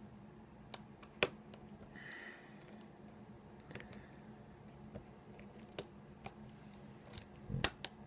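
Sparse, sharp metallic clicks and ticks of lock picks and tension tool working the pins inside an ASSA 700 lock fitted with security pins, the loudest click near the end.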